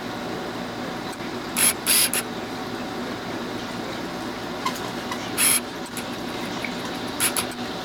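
Handling noise: a few short, sharp scrapes and clicks in three clusters, about one and a half seconds in, five and a half seconds in and near the end, over a steady background hiss.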